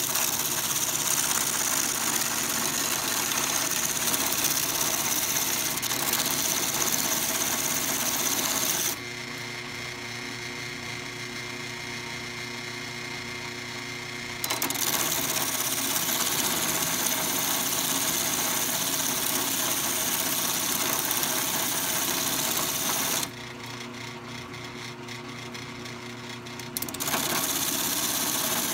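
Drill press spinning a coarse sanding drum with a steel axe head pressed against it: a steady motor hum under a loud grinding hiss. The hiss drops back twice for several seconds, about nine seconds in and again near the end, while the motor keeps running.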